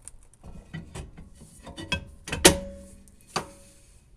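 Rear drum brake star-wheel adjuster being turned a few clicks at a time, giving a string of sharp metal clicks and scrapes; a louder metallic clank about two and a half seconds in rings briefly.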